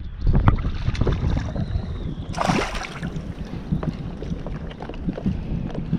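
Wind buffeting the microphone over shallow water lapping, with scattered small knocks and a brief louder rush of noise about two and a half seconds in.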